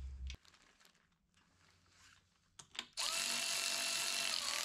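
Handheld cordless power tool running steadily at speed, spinning ring gear bolts into a differential carrier. It starts about three seconds in, after a couple of light clicks, and its pitch dips briefly near the end.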